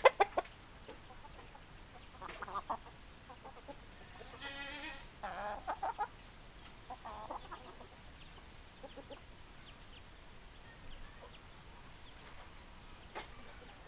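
Hens clucking in short, scattered bursts. A sharp, loud call comes right at the start, and a longer drawn-out call follows about four and a half seconds in.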